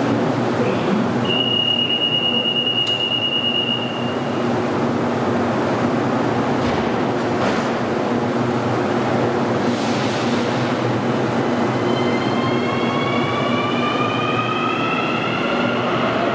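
Santiago Metro AS-14 subway train leaving a station over a steady hum. A high warning tone holds for about three seconds as the doors close, a few short clunks follow, and then the traction motors' whine rises in pitch as the train accelerates away.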